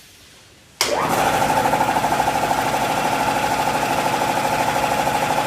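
Jonathan JT75390 oil-free air compressor starting up about a second in and running steadily, with a fast, even pulsing from its pump.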